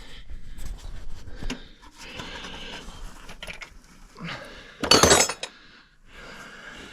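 Metal tools and hydraulic line fittings clinking and scraping as a new hydraulic line end is fitted by hand, with one louder metallic clank about five seconds in.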